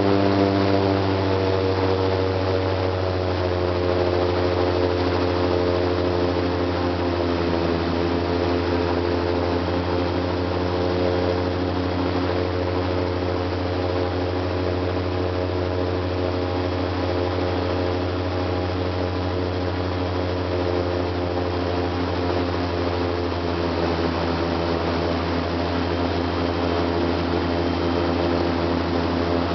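An airboat's engine and air propeller running steadily under way: a constant drone with a strong low hum, dipping slightly in pitch about eight seconds in.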